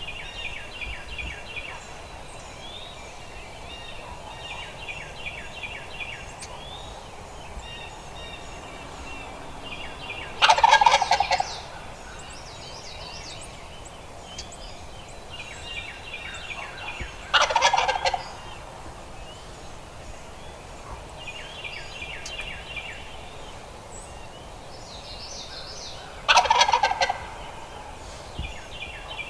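Male wild turkey gobbling: three loud rattling gobbles several seconds apart. Fainter, repeated smaller bird calls sound in between.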